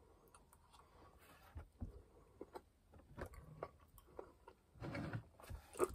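Faint, scattered small clicks and soft knocks, with a slightly fuller rustle about five seconds in.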